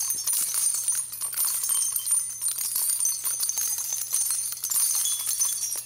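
High, busy jingling of small bells, added as a transition sound effect, over a faint steady low hum.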